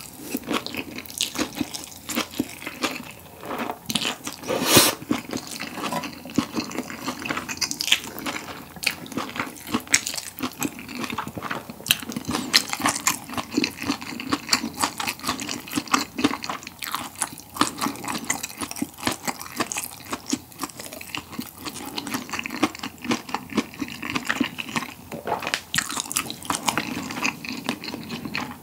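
Close-miked chewing of a mouthful of chewy jjolmyeon noodles with vegetables: a dense run of wet clicking mouth sounds and light crunches, with one louder smack about five seconds in.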